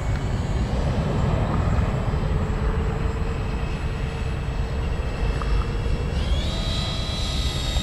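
Electric ducted fans of a radio-controlled Airbus A380 model whining steadily in flight overhead, their pitch rising and settling higher about six seconds in as the throttle is opened, over a low rumbling noise.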